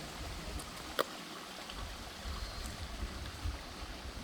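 Stream water running steadily over the rocks of the river bed, with a single sharp click about a second in.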